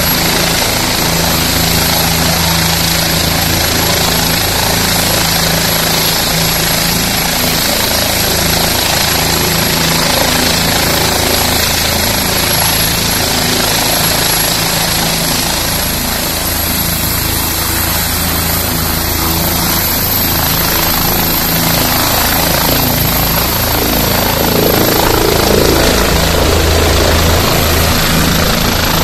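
Bell 427 twin-turbine helicopter running on the pad with its rotor at speed: a steady rotor beat under a high, thin turbine whine that rises slightly about two-thirds in. It grows louder near the end as the helicopter lifts off.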